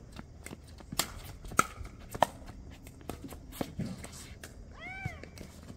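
Pickleball paddles hitting a hard plastic ball during a rally: a string of sharp hits, the loudest three coming quickly about a second in. Near the end there is a short squeak.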